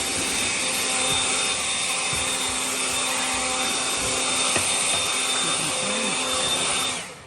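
Leaf blower running steadily with a high whine, blowing debris out of roof gutters. It cuts off suddenly near the end.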